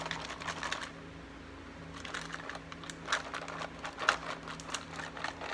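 Dry dog food kibble being handled and poured: scattered light clicks and crinkling, with a quieter lull about a second in and one sharper click near the end. A faint steady low hum runs underneath.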